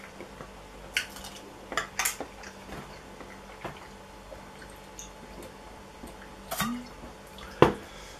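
A glass drink bottle being handled and drunk from: a few light clinks and taps, then a sharp knock near the end, the loudest sound, as the bottle is set down.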